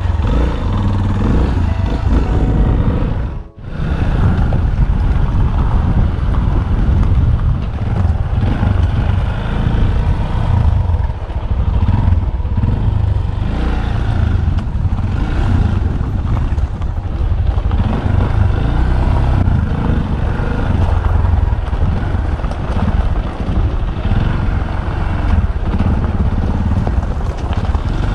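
Yamaha Tricker's single-cylinder engine running steadily as the bike rides along a gravel track, heard from the rider's helmet camera with low rumble on the microphone. The sound cuts out for a moment about three and a half seconds in.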